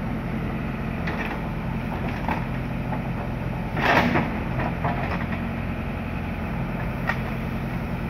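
JCB backhoe loader's diesel engine running steadily at about 1400 rpm while the backhoe bucket digs into the soil, with a few light knocks and a louder burst of noise about four seconds in as the bucket works the earth.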